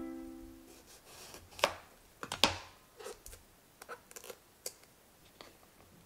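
Piano music fading out in the first second, then a series of sharp knocks and clicks, the loudest about two and a half seconds in: eggplants and a chef's knife being handled on a bamboo cutting board.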